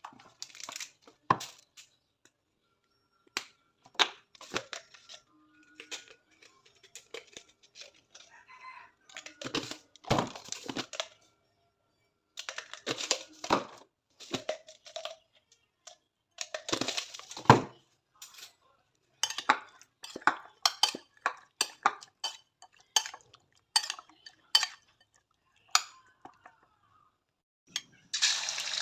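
Kitchen utensils and dishes being handled: scattered knocks and clinks with short rustling bursts, at an uneven pace.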